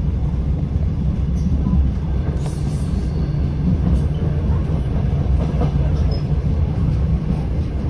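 DR1AM diesel multiple unit under way, heard from inside the carriage: a steady low rumble of engine and wheels on the rails, with a few faint clicks from the track.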